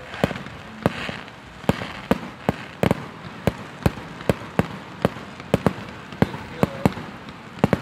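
Fireworks going off in a fast, irregular series of sharp bangs and pops, about two or three a second.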